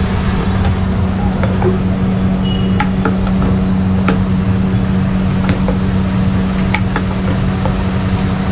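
Steady low machine hum with a noisy roar behind it, from kitchen equipment, with a few light taps and clicks scattered through as filled kachori dough is flattened by hand on a wooden board and slipped into hot oil.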